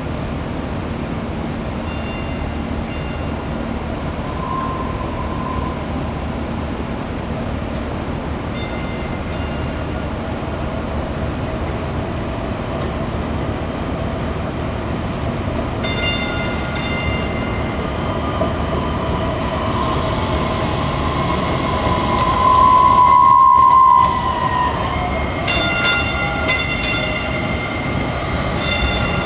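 DART light rail train approaching and passing close by on street track, its running noise growing louder. About three-quarters of the way through, a loud high tone sounds for about a second and a half, and clicking and metallic ringing follow as the cars go past.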